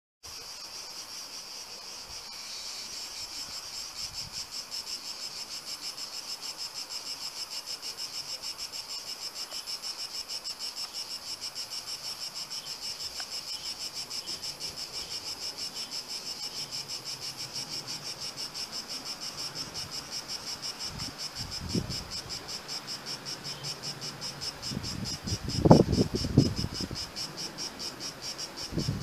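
Insects chirring: a steady, rapidly pulsing high-pitched song that runs on evenly, with a few short low bumps near the end.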